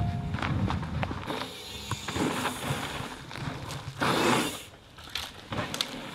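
Mountain bike rolling along a dirt trail: tyre noise over the ground with scattered mechanical clicks and rattles, and a louder rush of noise about four seconds in.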